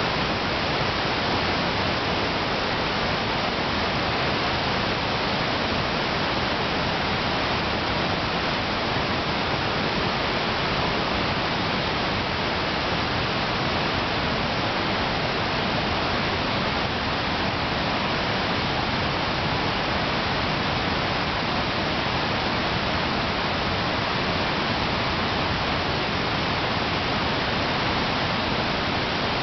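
Rushing water of the Niagara River rapids just above Niagara Falls: a steady, even roar with no change.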